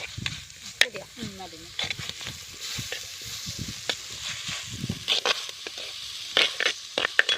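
Sandwich stuffing frying and sizzling in a pan while a spoon stirs it, with sharp clicks and scrapes of the spoon against the pan, most frequent near the end.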